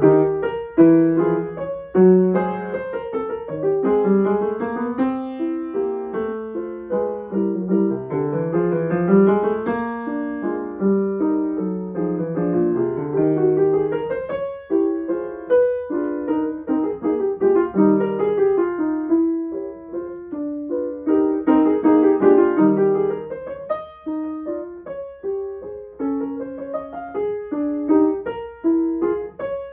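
Grand piano played solo: a brisk piece of quickly moving notes and chords.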